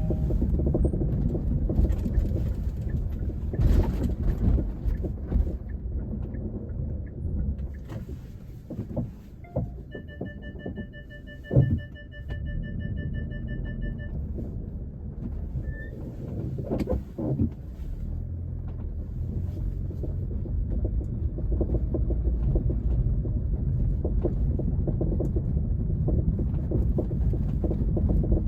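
Kia Optima JF on the move: steady low road rumble with occasional sharp knocks, the loudest a little before halfway. These are the rear-end knocking the owner is trying to track down. A pulsed two-tone beep sounds for about four seconds in the middle.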